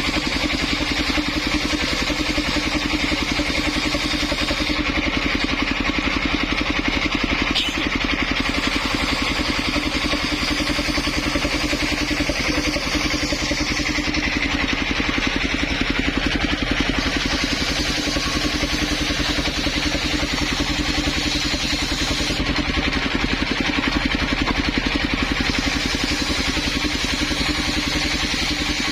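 Engine-driven circular saw rig running steadily, the engine note constant, with the hiss on top fading and returning several times in stretches of a few seconds.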